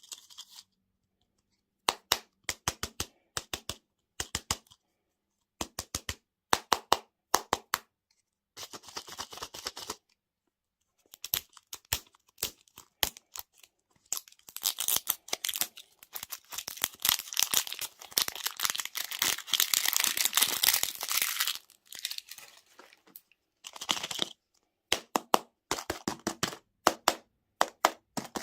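Plastic candy packaging being crinkled and torn open, in groups of sharp crackles, with a long stretch of dense crinkling and tearing about halfway through.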